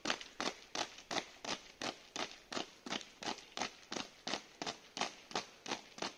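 Boots striking the ground in drill footwork: sharp, evenly spaced footfalls at a fast steady pace of about three a second.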